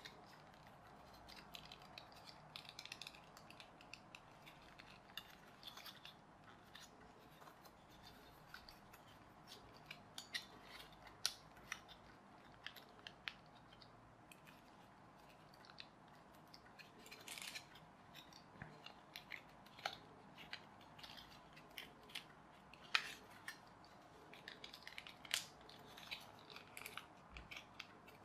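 Faint handling of stiff printed cardboard toy-car pieces being folded and slotted together: scattered small clicks, taps and rustles.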